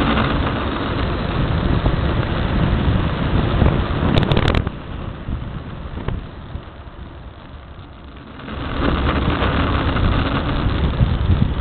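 Unpowered soapbox car rolling fast downhill, heard from a camera mounted on the car: an even rushing rumble of tyres on asphalt and air over the body, with no engine. A few sharp clicks come just before halfway, then the noise drops quieter for a few seconds and swells again near the end.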